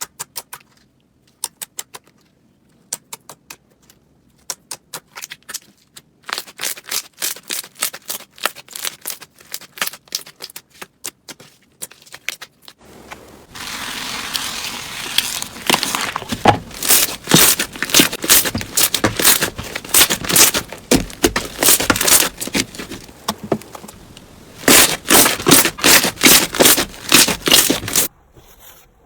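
Crunchy slime being pressed and squeezed close to the microphone: a run of sharp crackling pops. The pops are sparse at first and grow denser and louder from about halfway, changing abruptly several times.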